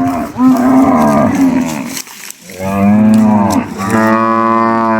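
Cow mooing: three long moos one after another, each dropping in pitch as it ends.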